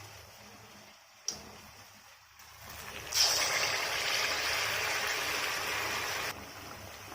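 Batter-coated banana sukiyan sizzling in hot frying oil: a loud, even hiss that starts abruptly about three seconds in and cuts off sharply about a second before the end, after one faint click about a second in.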